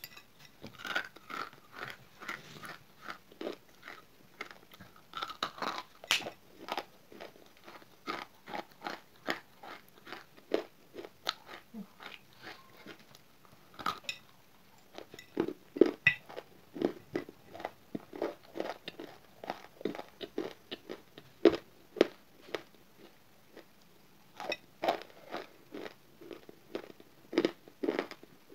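A person biting and chewing grey roasted nakumat, a baked edible clay: a fast, uneven run of crunches, with louder bites every few seconds.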